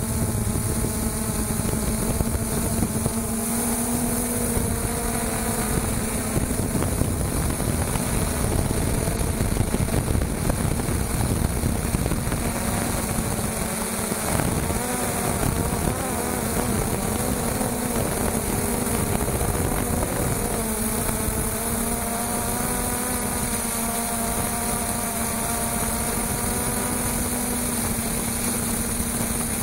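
Traxxas Aton quadcopter's motors and propellers buzzing in flight, heard from its own onboard camera. A steady hum runs under several fainter tones that waver up and down as the motors change speed, with a constant high hiss over it.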